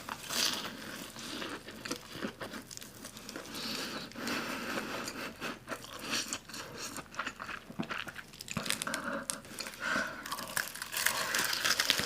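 Close-up chewing of crunchy food: a run of irregular crisp crunches and crackles, louder toward the end.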